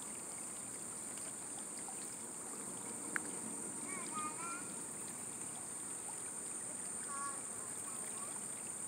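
Quiet river ambience: a low, steady rush of flowing water under a constant high hiss, with a single sharp click about three seconds in.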